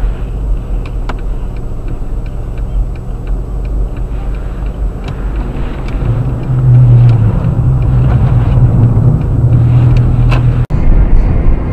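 A car's engine running with road noise, its note growing louder about six seconds in as the car speeds up. A quick, regular ticking runs over the first few seconds, and the sound cuts off abruptly near the end.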